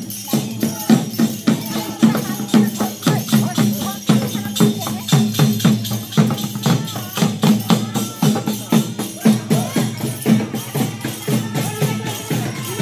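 Live percussion music: a drum beaten in a steady, quick rhythm, with rattling higher percussion sounding on the beats.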